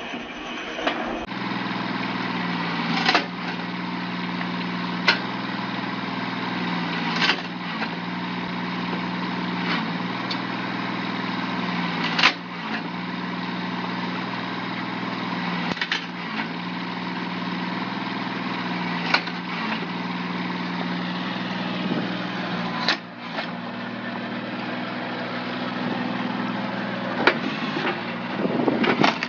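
Band saw running steadily as its blade cuts through a log, with sharp clicks every two to three seconds.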